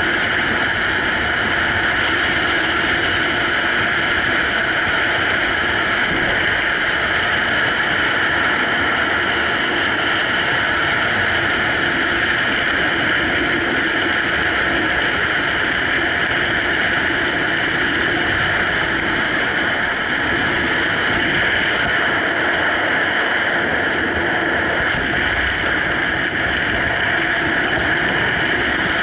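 Steady rush of wind over a helmet-mounted camera's microphone during a descent under an open parachute canopy, a constant hiss with a faint whistle-like edge.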